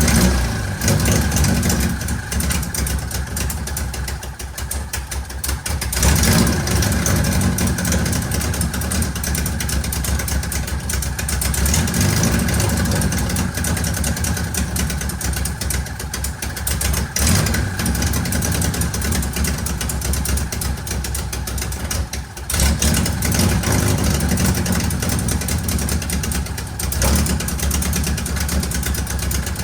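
Car engine running at idle after its ignition timing has been set and its cooling system purged, the level jumping up suddenly at about six seconds and again at about twenty-two seconds.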